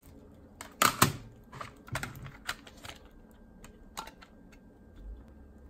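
Plastic CD jewel case being opened and the disc prised off its centre hub: a series of sharp plastic clicks and clacks, the loudest two close together about a second in.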